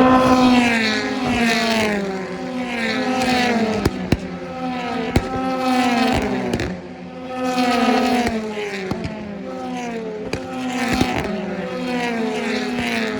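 BTCC touring car engines running at race pace, their notes falling in pitch and jumping back up again and again, about once every second or so. A few sharp cracks come about four and five seconds in.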